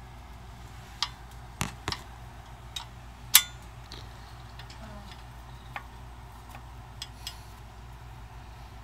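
Scattered light metallic clicks and taps from handling the parts of a disassembled Predator 212 engine, with one louder ringing clink about three and a half seconds in, over a low steady hum.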